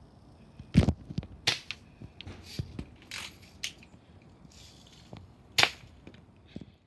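BB rifle firing repeatedly: a string of sharp cracks at uneven intervals, the loudest about a second in and again near the end.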